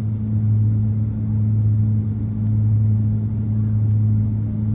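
Steady low engine drone with a deep, unchanging hum.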